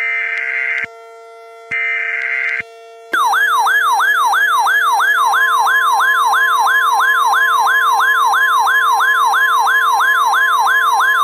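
Emergency Alert System signals: two short, harsh digital header data bursts about a second apart, then from about 3 s in a loud warbling siren-style alert tone that sweeps up and down about three times a second, with a steady tone joining it at about 5 s. A low steady tone hums underneath throughout.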